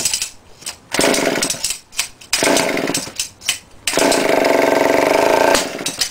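Small two-stroke engine running on hydrogen gas from an electrolysis cell, catching and cutting out in several short bursts, the longest about a second and a half near the end.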